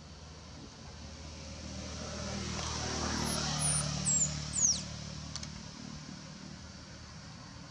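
A motor vehicle passes by, its engine hum swelling to a peak around the middle and fading away. Near the middle, a few short, high chirps that sweep downward are the loudest sounds.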